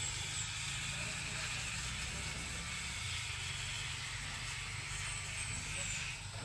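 Steady outdoor ambience: a low rumble under an even high hiss, with a few short high chirps near the start and near the end. A hum in the hiss stops abruptly near the end.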